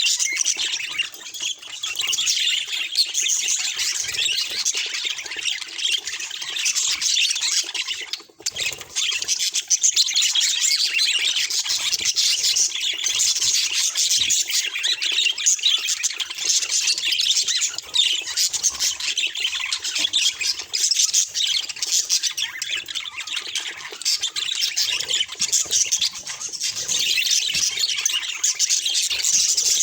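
Budgerigar calls: rapid, continuous chirping and chattering, with a brief pause about eight seconds in.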